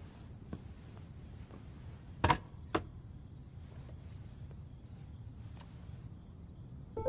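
Quiet night ambience with insects chirping in short spells, soft footsteps, and two sharp knocks about half a second apart a little over two seconds in.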